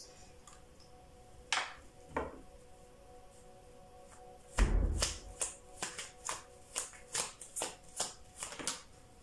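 A deck of tarot cards being shuffled by hand: two light strokes, then about four and a half seconds in a thump followed by a quick run of about ten short shuffling strokes over four seconds.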